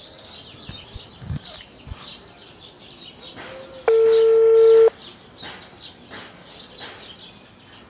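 Telephone ringback tone over a phone's speaker: one steady beep about a second long, about four seconds in, while the call rings at the other end. Birds chirp in the background throughout.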